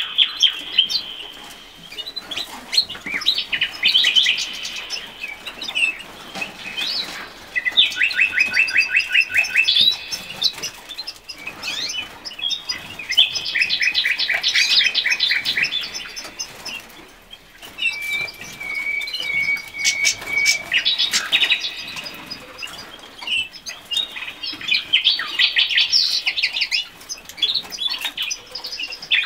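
Cage birds singing in bouts every few seconds, each bout a fast trill of repeated chirps. About two-thirds of the way through comes a steady whistled note lasting about two seconds.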